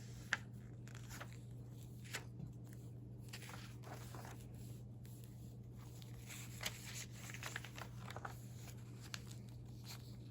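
Faint rustling and crinkling of paper as pages of clippings in a recipe binder are handled and turned, with a steady low hum underneath.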